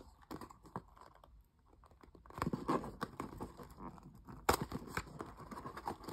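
Small cardboard blind box handled on a wooden tabletop: light taps, scrapes and rustles of cardboard, with one sharper knock about four and a half seconds in.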